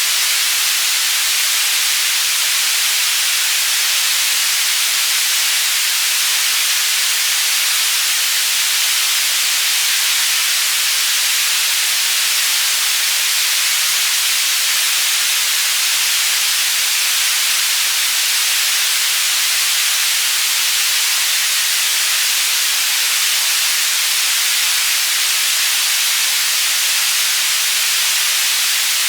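Synthetic white noise for tinnitus masking, panning between left and right: a steady, bright hiss with little low end and no breaks.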